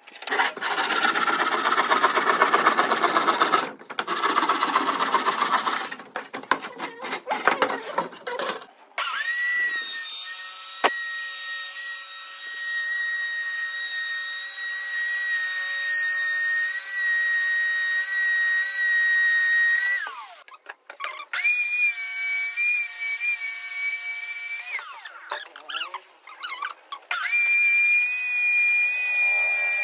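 Electric jigsaw, mounted upside down as a makeshift scroll saw, cutting plywood: a rasping buzz in three stretches over the first nine seconds. Then comes the motor's steady high whine, which stops and starts again twice, a little higher in pitch the later times.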